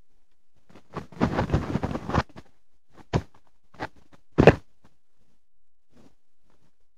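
Handling noise near the microphone: a second of rustling, then three short knocks, the last the loudest.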